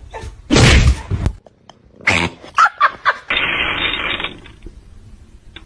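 Pet animal sounds among several loud, sudden noises.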